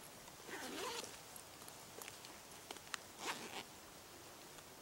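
Zipper on a camouflage nylon backpack being pulled, twice, with small clicks of handling in between.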